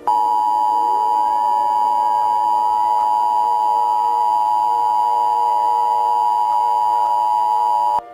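Emergency Alert System attention signal: the two-tone alert beep, a loud steady tone near 1 kHz held for about eight seconds, starting and cutting off abruptly.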